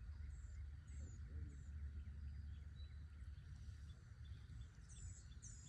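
Birds chirping outdoors: a few short, high chirps in the first second and a half and two louder ones near the end, over a low, steady rumble of wind on the microphone.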